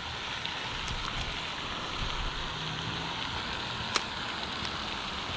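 Steady splashing hiss of water falling from a pond's spray fountain, with a single sharp click about four seconds in.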